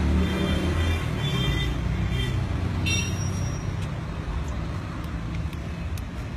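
Street traffic noise: a steady low rumble of passing vehicles, with a short high-pitched sound about three seconds in.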